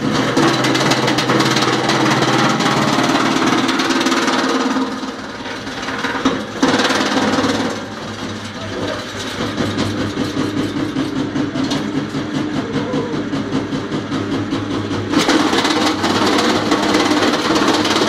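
Homemade two-knife drum wood chipper driven by a 7.5 kW electric motor, chipping branches as they are fed in: loud chipping noise for the first few seconds, briefly in the middle, and again near the end, with the steady hum of the spinning drum and motor in between.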